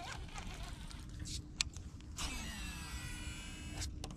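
A cast with a baitcasting reel: a couple of light clicks, then, about two seconds in, the spool whirs out with a whine that drops in pitch as it slows, ending in a sharp click as the reel is engaged. A steady low hum runs underneath.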